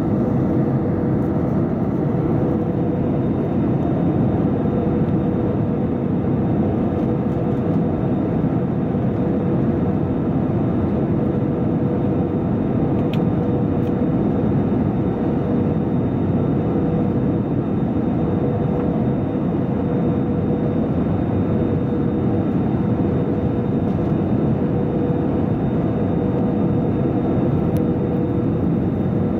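Cabin noise inside an Airbus A320-214 on final approach with flaps down: a steady rumble of airflow and its CFM56-5B turbofan engines, heard beside the engine, with a steady mid-pitched hum running through it.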